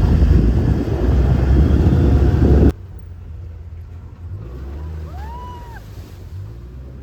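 A loud low rumble that cuts off suddenly about two and a half seconds in, giving way to a much quieter low hum. Near the middle of the quieter part there is one short tone that rises and falls.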